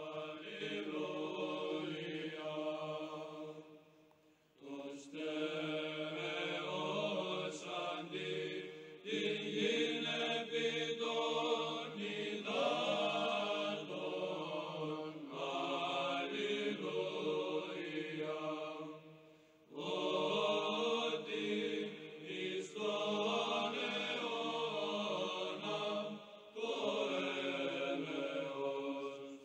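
Slow sung chant by a group of voices holding long notes in phrases, with brief pauses about 4, 20 and 27 seconds in.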